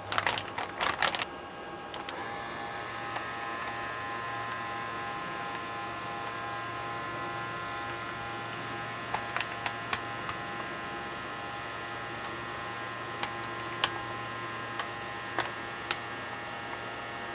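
Vacbird electric vacuum pump for filament storage bags starts about two seconds in after some handling clicks, then runs steadily with a motor hum and whine as it draws the air out of a bag. A few sharp ticks come in the second half.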